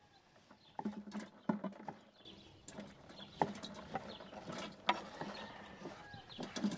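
Chopped watermelon scraped off a wooden cutting board with a knife, the pieces dropping into a large plastic jar of water and ice, with irregular scrapes, knocks and plops.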